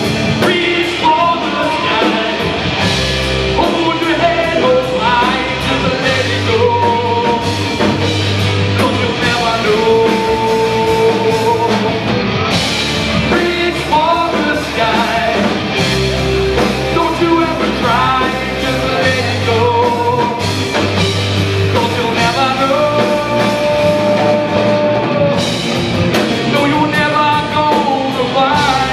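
Live rock band playing a song: electric guitars, bass guitar and drum kit, with a man singing lead.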